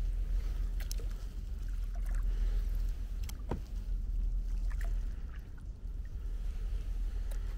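Paddling a kayak: the paddle blades splash now and then and water drips off them, over a steady rumble of wind on the microphone.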